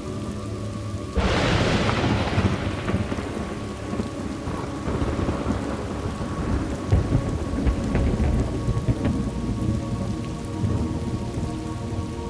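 Thunderstorm: steady rain falling, with a thunderclap breaking sharply about a second in and rolling on as a long low rumble that slowly fades.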